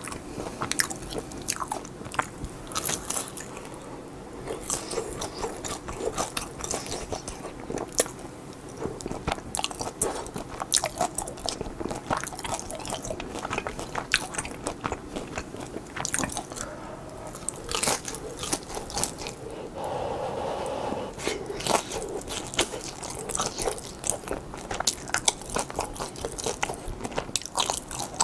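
Close-miked biting and chewing of pan-fried cheese-filled hotteok dumplings, with irregular crunching of the crust between chews.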